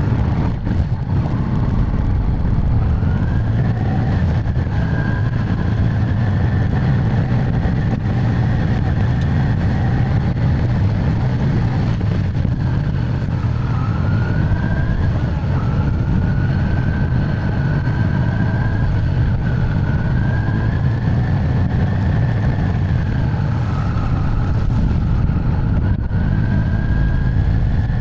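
Carbureted motorcycle engine running under way on a ride: a steady low rumble with a whine that rises and falls as the throttle changes.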